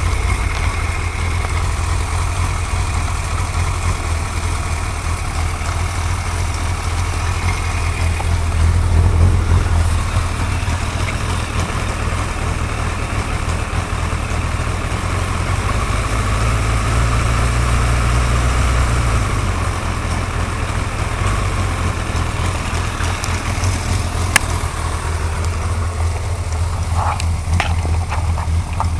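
Suzuki GSX-R1100 inline-four engine idling, with a ticking noise from the engine. The idle swells slightly a couple of times, and there is a single sharp click about 24 seconds in.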